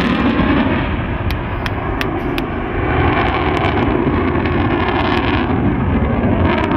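F-16 fighter jet flying past with a loud, steady engine rumble. A few sharp clicks come between about one and two and a half seconds in.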